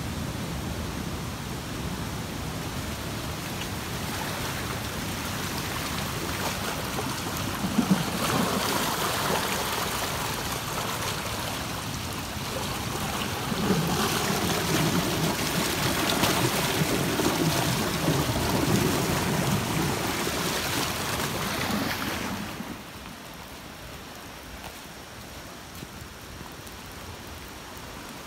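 Floodwater rushing over a yard and along a concrete edge: a steady rush of moving water that grows louder partway through and falls off sharply late on.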